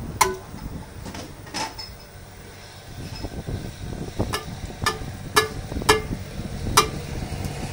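Hot tea pouring through a steel strainer held in tongs onto tandoor-heated clay cups in a steel bowl, with repeated sharp metal clinks that ring briefly as the strainer knocks against the pot and bowl. A steady low rumble runs underneath.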